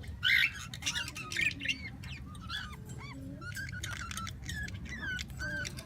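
Pet birds chirping and squawking: a harsh squawk about a quarter second in, then a run of short, quick chirps that rise and fall in pitch.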